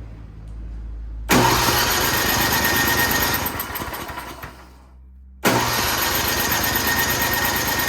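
Toro Power Shift 824 snowblower engine being cranked twice, each attempt lasting two to three seconds with a quick regular chugging ripple; it turns over but never fires or catches, the no-start the snowblower is in for. The first attempt starts suddenly about a second in and winds down, the second starts suddenly just past the halfway point.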